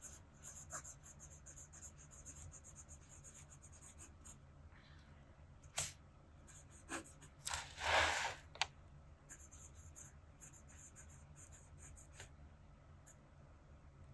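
Double-broad nib of a Nahvalur Nautilus fountain pen scratching softly across paper in short cursive strokes. A sharp tick comes a little before six seconds in, and a louder rush of noise lasting about a second follows near eight seconds.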